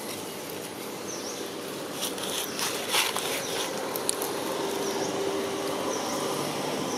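Outdoor woodland ambience of insects with short high chirps, and a brief crackle of dry leaves about three seconds in.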